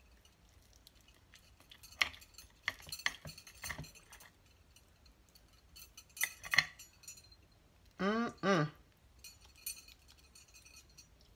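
A metal fork clinking and scraping against a ceramic platter as pieces of chicken are picked up: scattered sharp clinks, with the loudest pair a little past halfway. About two-thirds of the way in, a person makes a brief two-part hum.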